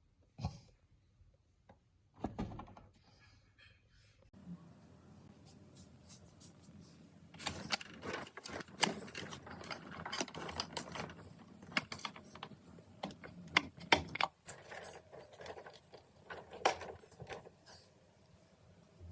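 Hands handling a box and its packaging: a couple of sharp knocks, then a busy run of clicks and crinkly rustling in the middle, thinning to scattered clicks.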